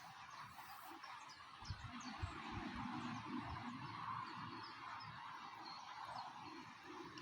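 Faint small-bird chirps over a steady outdoor background hiss, with a few low thuds about two seconds in.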